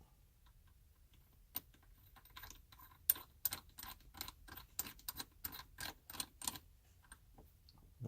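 A run of light, evenly spaced clicks, about three a second for roughly five seconds, as the adjusting knob on an aftermarket shift knob is turned while it is being fitted to the shifter.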